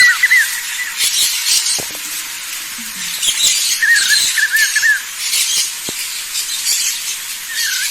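Caatinga scrub-forest ambience: a bird sings short phrases of quick, arched whistled notes at the start, about four seconds in and near the end, over a high buzzing hiss from insects that swells and fades about every second and a half.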